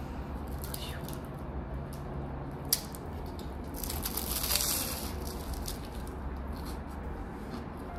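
A flaky pastry being bitten into: a crackly crunch of the crust about four seconds in, lasting about a second, with a single sharp click a little before. A steady low hum runs underneath.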